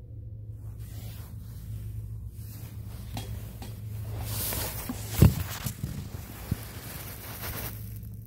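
Rustling and handling noise up close, with one loud thump about five seconds in and a few light clicks after it, over a steady low hum.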